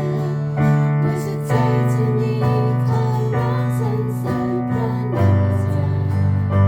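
Worship song music: sustained keyboard chords with acoustic guitar, the chords changing about every second, with a faint female vocal line.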